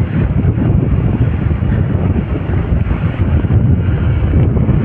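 Steady low wind buffeting on an action camera's microphone while riding a Hero XPulse 200 4V motorcycle, with the bike's running mixed into the rumble.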